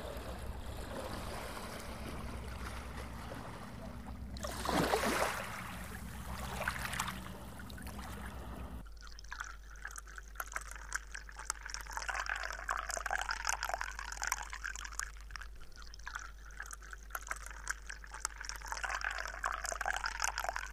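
Water poured in a thin stream from a glass pitcher into a glass tumbler, trickling and splashing steadily, starting about nine seconds in. Before that, a low steady hum with a brief swell of noise around five seconds.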